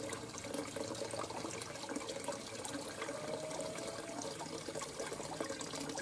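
Steady trickle of running water.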